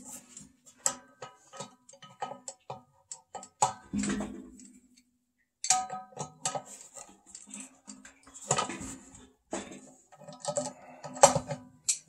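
Hand tools clicking and clinking against the metal blower assembly, irregular sharp metallic ticks with brief ringing and a short pause near the middle, as the bolt holding the squirrel-cage blower wheel to the motor shaft is loosened.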